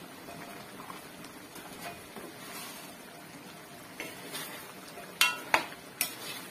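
Metal spatula stirring chicken stew in an aluminium wok, scraping through the sauce over a faint simmer, then clanking sharply against the pan four times in the last two and a half seconds.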